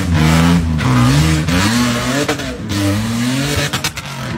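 Off-road truck engine revving up and down about four times as it drives through mud, over a rushing hiss of spinning tyres and spray.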